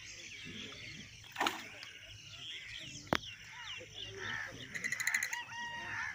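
Birds chirping, with a rooster crowing near the end. Two sharp clicks about a second and a half and about three seconds in.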